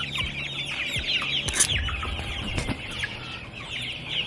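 A flock of young chickens peeping and cheeping, many short, high, falling chirps overlapping without pause.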